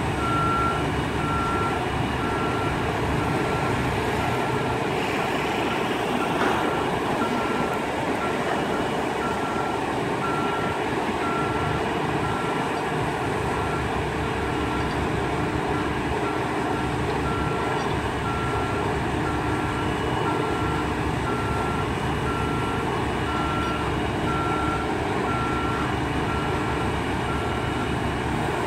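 A construction-equipment motion alarm beeping steadily, about once a second, over the constant running of a heavy diesel engine.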